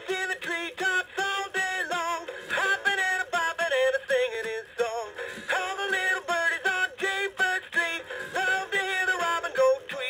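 Gemmy animated singing robin figurine playing its song: music with a synthetic singing voice in short, choppy notes, a few per second.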